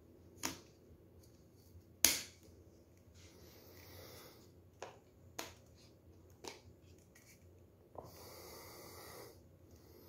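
Hard plastic parts of a Xiaomi Mi Vacuum Cleaner Mini handheld vacuum being fitted and unlatched by hand: about six sharp clicks and snaps, the loudest about two seconds in, with two short spells of plastic scraping and sliding. The motor is not running.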